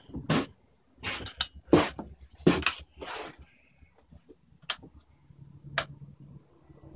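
A series of about seven separate knocks, clanks and sharp clicks as tools and metal parts are handled and moved about in a workshop, with a faint low hum near the end.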